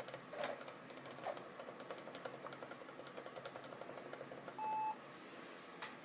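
Lenovo ThinkPad T520 starting up: a few key clicks, then faint rapid ticking, then, about three-quarters of the way through, one short steady beep from the laptop's speaker. The beep acknowledges the ThinkVantage key and calls up the Startup Interrupt Menu.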